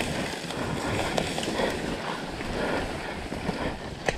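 Rushing wind noise on the microphone, with a few sharp knocks.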